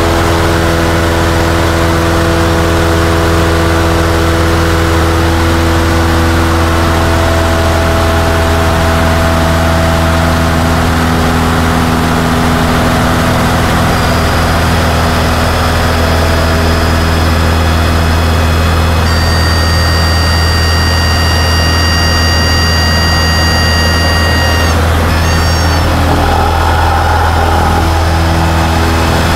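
Cessna 152's four-cylinder Lycoming engine and propeller droning steadily at high power, heard inside the cockpit. About two-thirds of the way through, a high steady whistle sounds for about six seconds, wavers and cuts off, with a fainter high tone returning near the end: the stall warning horn, signalling that the wing is nearing the stall.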